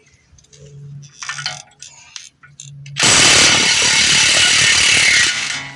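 Impact wrench hammering hard for about two and a half seconds on a 36 mm fastener, driven through a regular (non-impact) socket, and breaking it loose. It starts about three seconds in, after a few light clicks of the tool and socket being handled.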